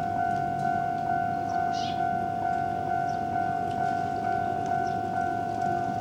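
Japanese level-crossing warning bell ringing, a steady two-tone ding repeating about twice a second.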